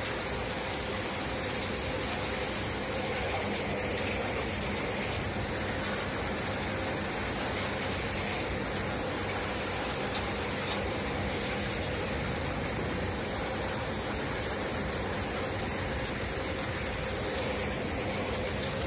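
TAGRM M4800 windrow compost turner running, its rotating drum churning and throwing landfill waste: a steady hiss like pouring rain over a constant low machine hum.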